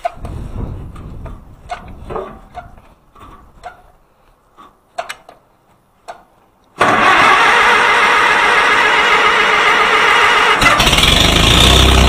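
Handling clicks and knocks, then a vintage Farmall tractor engine starting abruptly about seven seconds in and running loudly, taking on a deeper, heavier tone about four seconds later. The start shows that the battery is not the fault.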